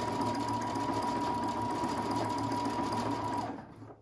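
Brother Innov-is 200 sewing machine running steadily while stitching a wide decorative stitch, with a steady high whine. It stops about three and a half seconds in.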